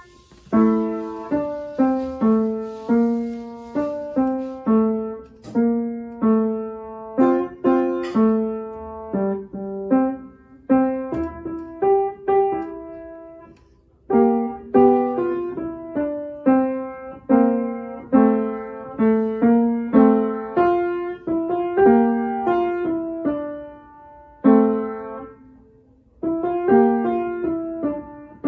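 Upright acoustic piano being played: a melody over lower accompanying notes, each note struck and dying away. The playing moves in phrases with short breaks about halfway through and again near the end.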